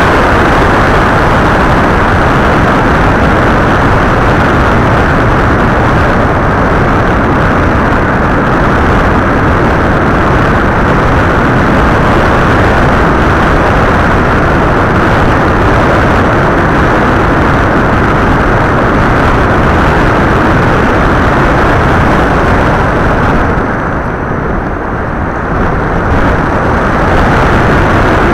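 Loud steady rush of wind noise on the onboard camera of an FPV model aircraft in flight. It eases for a couple of seconds near the end, then returns.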